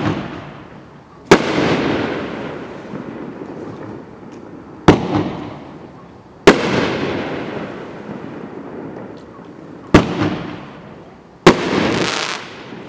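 Dominator Devil's Fury firework cake firing aerial shells. A lift shot is followed about a second and a half later by the shell bursting overhead with a sharp bang and a fading tail. Three bursts and two launches are heard.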